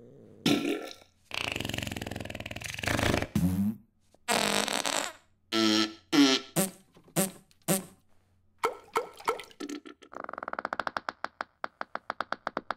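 Comic fart sound effects for a cat straining on a toilet: a string of separate blasts of varying length, some with a pitched tone. From about ten seconds in they become one long, fast-fluttering fart.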